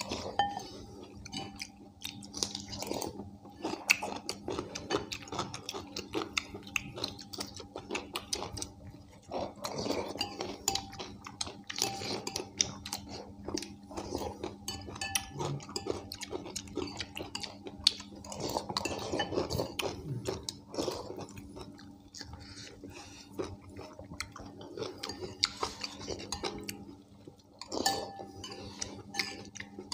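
Spoons clinking and scraping irregularly against ceramic bowls of thick haleem as two people eat quickly, with chewing, over a faint steady hum.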